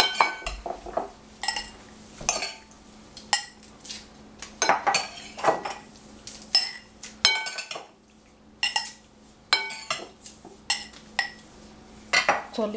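A metal spoon clinking and scraping against a glass bowl and glass jars as olives are scooped and spooned into the jars: a string of irregular sharp clinks, each ringing briefly.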